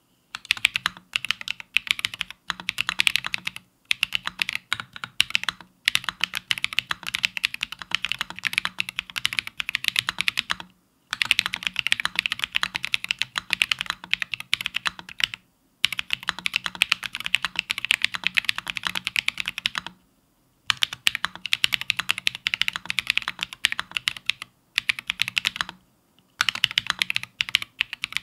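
Steady typing on a Bear65 custom mechanical keyboard fitted with Holy Panda tactile switches and SA-profile Godspeed keycaps: fast runs of key clacks broken by short pauses every few seconds.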